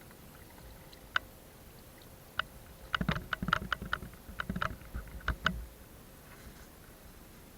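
Knocks and clatter from handling the net and gear in a small boat: a single knock about a second in, another near two and a half seconds, then a run of sharp knocks from about three to five and a half seconds.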